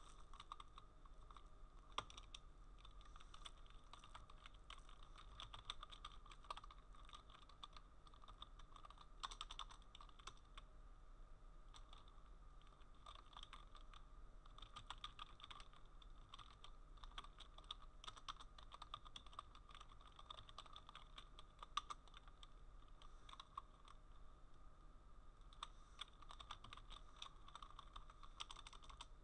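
Faint typing on a computer keyboard: an irregular run of key clicks with short pauses, over a faint steady hum.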